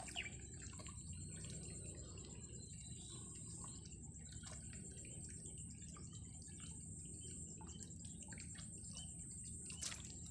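Steady, high-pitched insect chirring, continuous and finely pulsed, over a quiet outdoor background. A sharp click comes just after the start and another near the end.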